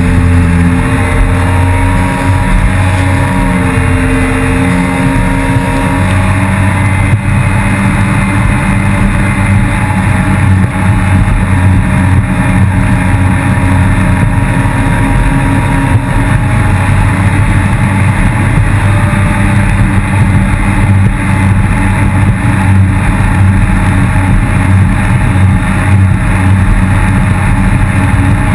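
Yamaha FX160 HO jet ski's four-stroke engine running hard under way, loud and continuous. Its pitch wavers for the first several seconds, then holds steady.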